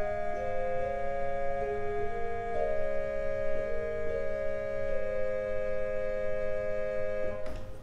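Organ playing slow, sustained chords over a held low note, with the upper notes changing every second or so. The music stops a little before the end.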